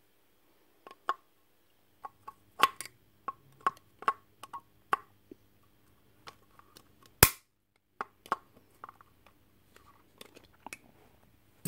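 Scattered sharp clicks and taps of a hand tool picking and prying at the parts inside a Rotabroach Commando 40 magnetic drill's gear housing, with one much louder snap about seven seconds in.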